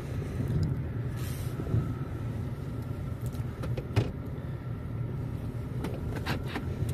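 2008 Chevrolet Tahoe's V8 engine idling steadily, heard from inside the cab, with a few light clicks about four and six seconds in.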